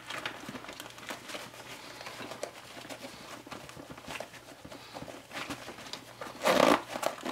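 Nylon fabric rustling and light clicks as the stuffed front pouch of a MOLLE II medical backpack is pressed shut and zipped closed. A louder rasping zip comes near the end.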